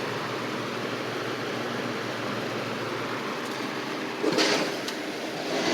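Lasko Cool Colors 20-inch box fan running steadily: an even rush of moving air from its blades.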